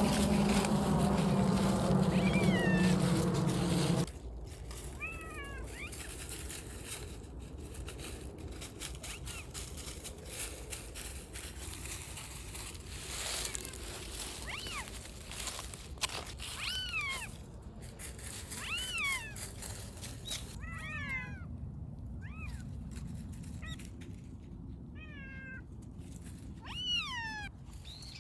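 Cats meowing again and again, short calls that fall in pitch, over the crunching of dry fallen leaves under their paws. A loud steady noise fills the first four seconds and cuts off suddenly.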